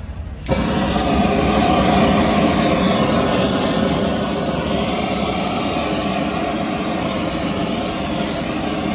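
Gas torch flame roaring steadily, lit suddenly about half a second in.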